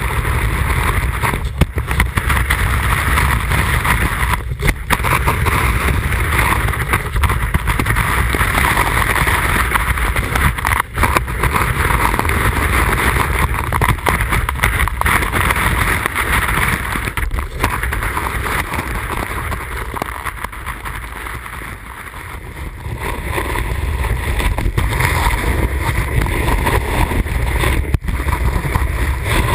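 Alpine snowboard carving on snow: a steady rushing hiss of the edge cutting and spraying snow, with low wind rumble on a board-mounted action camera's microphone. It dips quieter about two-thirds of the way through, and a few very brief dropouts break it where clips are cut together.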